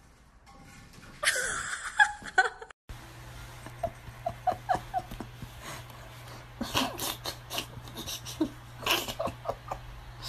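A small dog whining in short, high squeaks that come in quick runs, mixed with bursts of human laughter.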